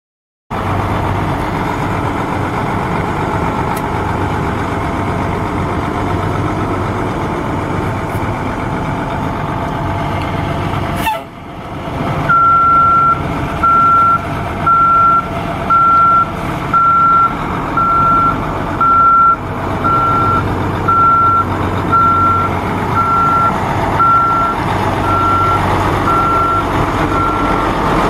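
A heavy truck's Cummins ISC 8.3-litre diesel engine idling steadily. From about the middle on, a backup alarm beeps about once a second over it.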